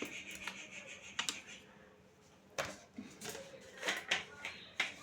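A scatter of short, sharp clicks and knocks, several of them bunched in the second half.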